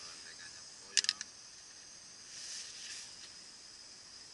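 Chicken and peppers sizzling in a frying pan on a small camping gas stove: a steady high hiss, with a quick cluster of clicks about a second in and a brief louder swell of sizzle near the middle.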